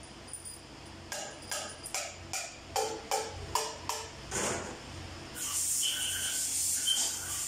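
Metal parts and hand tools being knocked and handled at a workbench: a quick run of about ten sharp, ringing metallic knocks, then a steady rasping hiss from about five seconds in.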